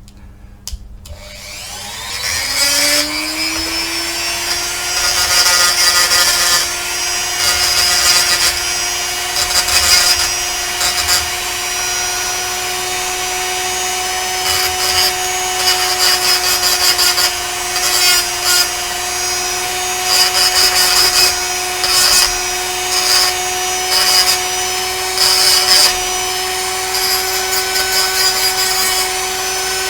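Small high-speed rotary tool spinning up, then running with a steady whine. Repeated short bursts of grinding come as the bit is pressed against a pewter cast to take off its mould lines.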